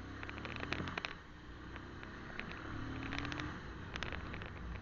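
Motorcycle running at low speed, a steady low engine hum with scattered clicks and rattles.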